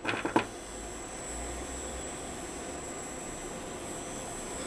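Rewound RCtimer 5010 brushless gimbal motor, energised by an AlexMos gimbal controller, giving a steady hiss with a faint high whine while it holds the arm and jitters. The owner puts the jitter down to the controller's gains being set too high. Two short sounds come right at the start.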